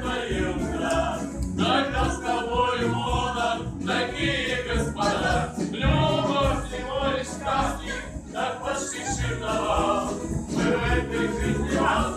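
Background music: a song with voices singing, wavering in pitch, over an instrumental accompaniment.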